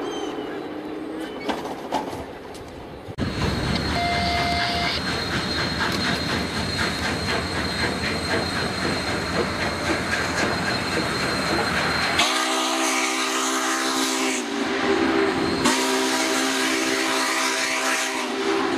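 A passing train hauled by Union Pacific 4-8-4 steam locomotive No. 844: a steady loud rumble and clatter of the train on the rails, then two long blasts of a multi-note chime train whistle in the last third.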